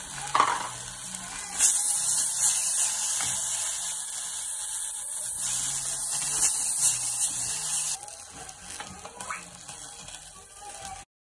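Chopped rape greens and tomatoes hissing and sizzling in a hot steel pot as they are stirred with a wooden spoon. A knock comes about half a second in; the hiss starts sharply a little later and drops away about eight seconds in.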